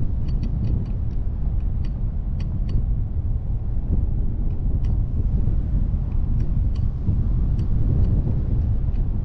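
Vehicle driving on a gravel dirt road, heard from a camera mounted on its roof: a steady low rumble of tyres and wind, with scattered sharp ticks.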